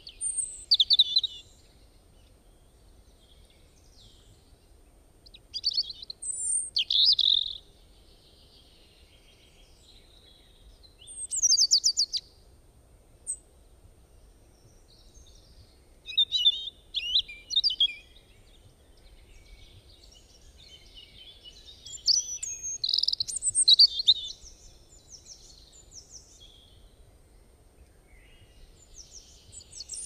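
Songbirds singing: short bright phrases of quick chirps, trills and sweeping notes, about six of them a few seconds apart with quiet pauses between.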